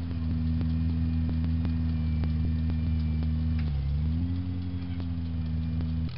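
Small garden tractor engine running at a steady governed speed while pulling a cultivator through soil, bogging down in pitch about four seconds in and recovering, with a light regular ticking about three times a second.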